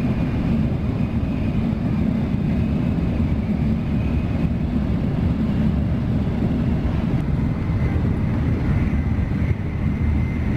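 Tokaido Shinkansen bullet train running at speed, heard inside the passenger car: a steady low rumble with a faint high whine over it.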